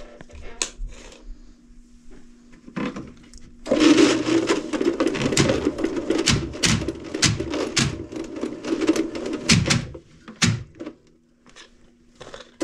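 Drum-type drain-cleaning machine running, its spinning cable clattering and rattling in a PVC cleanout. It starts about four seconds in and stops around ten seconds, with a faint steady hum before and after.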